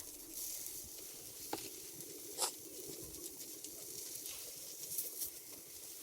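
Food frying in a pan: a faint, steady sizzle with a few small pops.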